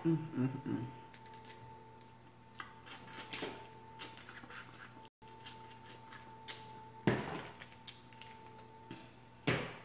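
Boiled shellfish shells (crawfish, crab legs) cracked and peeled by hand, in short crackling clicks and scrapes that come in scattered bursts, with clusters near the start, around three seconds in, at about seven seconds and near the end.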